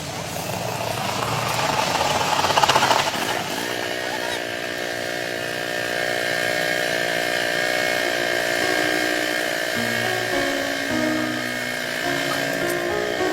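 A noisy hiss swells for about three seconds, then gives way to background music with sustained notes that change pitch in steps.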